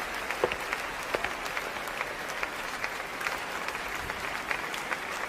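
Audience applauding: a steady patter of many hands clapping, with single sharper claps standing out here and there, greeting an award announcement.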